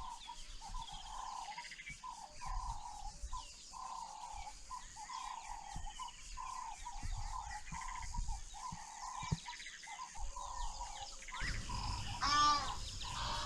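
Bush ambience: a short call repeated about once or twice a second, over a steady high-pitched insect shrill. Near the end comes one louder, rising call.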